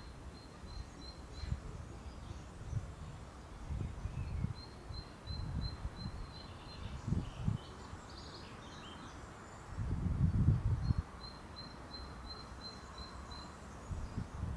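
Wind buffeting the microphone in uneven gusts, strongest about ten seconds in. A small bird repeats a run of evenly spaced high notes, about three a second, three times, with a few other chirps in between.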